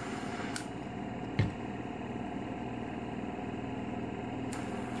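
Portable oxygen concentrator (Respironics EverGo) running with a steady hum from its compressor. A single knock about a second and a half in.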